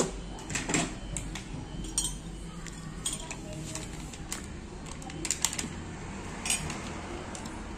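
Light clinks and clicks of crockery and glassware handled while instant coffee is made: a cup and glass knocked lightly as a coffee sachet is opened and emptied into a cup. The clicks come sparsely, a few seconds apart.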